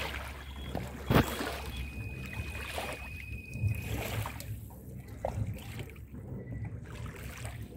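Four Winns motorboat's engine running at low idle as the boat eases away from the pier, a low steady hum with water lapping. A single sharp knock about a second in.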